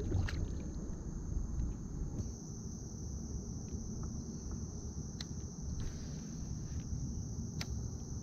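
Insects, crickets by their steady high drone, singing continuously over a low, dense rumble. A few sharp clicks about five, six and seven and a half seconds in.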